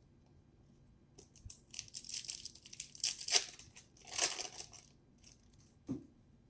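A baseball trading-card pack wrapper being torn open and crinkled, in two stronger rips a second apart, with a short rustle near the end.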